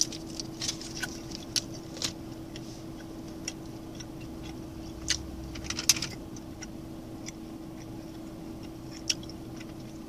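Plastic salami-snack wrapper being handled, giving a scattered series of short crackles and clicks that cluster around five to six seconds in. A steady low hum runs underneath.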